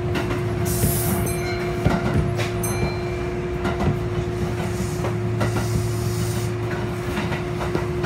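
Passenger train running, heard from inside the carriage: a steady rumble with a constant hum, scattered clicks of the wheels, and two brief bouts of high hiss, one about a second in and one between five and six and a half seconds.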